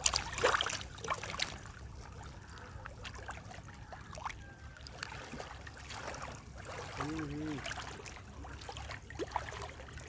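Water splashing and lapping against a boat on the river, with many small irregular splashes over a steady low rumble. A brief voice is heard about seven seconds in.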